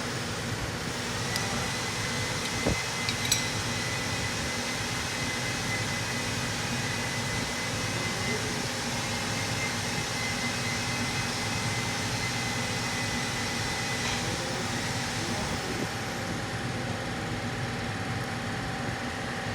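Steady mechanical hum of workshop background noise with a faint high whine, and a couple of brief metallic clicks about three seconds in.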